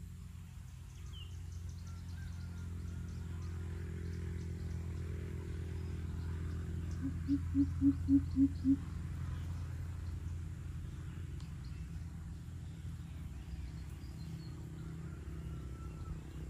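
Greater coucal calling: a run of six deep hoots, about three or four a second, near the middle, over a steady low hum and faint insect ticking.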